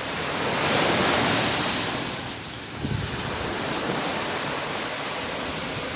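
Ocean waves breaking and washing on the shore, one surge swelling about a second in, with wind buffeting the microphone. A brief sharp click a little after two seconds.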